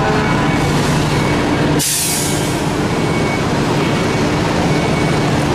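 Fire engine's diesel engine idling steadily, with a sharp hiss of air brakes venting about two seconds in.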